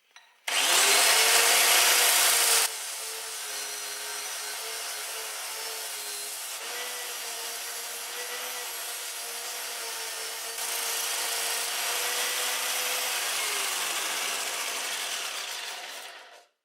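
Homemade belt grinder driven by an angle grinder, its sanding belt grinding a workpiece flat: a loud rasp for the first couple of seconds, then steadier grinding over the motor's hum, whose pitch sags a little under load. Near the end the motor's pitch falls as it winds down, then stops.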